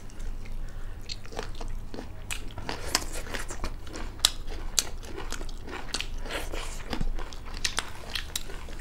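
Mouth chewing and biting of chicken gizzard fry with rice, eaten by hand: many small, irregular crunches and wet clicks.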